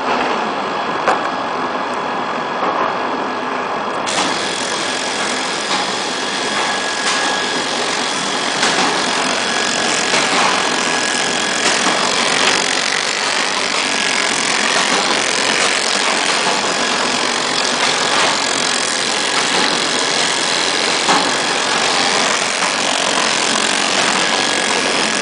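Horizontal automatic ice lolly packing machine running steadily just after start-up: a continuous mechanical whir with a steady high whine and repeated light clicks.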